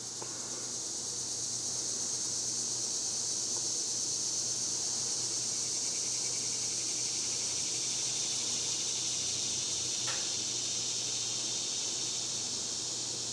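Moss Tropical Breeze Deluxe ceiling fan with cane blades running on its low speed: a steady rush of moving air over a low motor hum, growing slightly in the first couple of seconds and then holding steady. A single brief click about ten seconds in.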